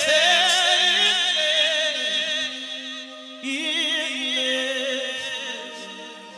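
Slow worship song: a singer holds long, drawn-out notes with a wide vibrato, in two phrases with a pause of about a second between them, over sustained acoustic guitar.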